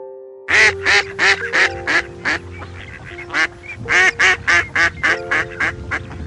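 Duck quacking in two runs of rapid quacks, about three a second, with a short pause between the runs, over background music.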